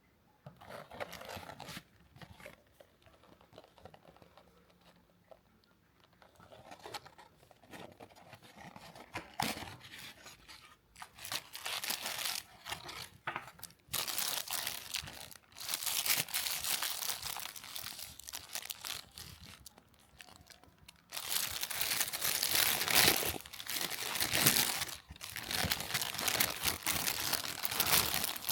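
Paper takeout packaging being handled, torn open and crumpled: irregular rustling and crinkling, sparse at first and growing louder and busier about halfway through.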